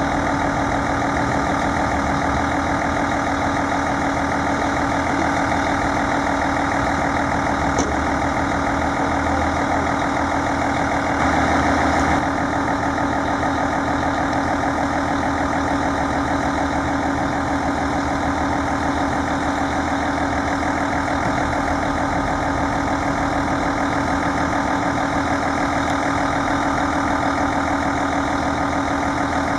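Heavy diesel engine idling steadily, with a brief louder rush of noise about twelve seconds in.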